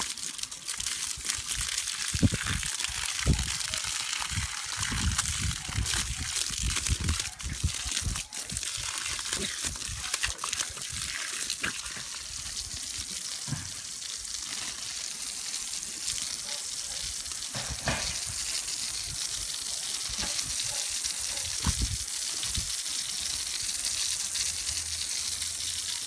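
Water spraying from a garden hose onto grass, a steady hiss with irregular low thumps and splatters, most frequent in the first twelve seconds.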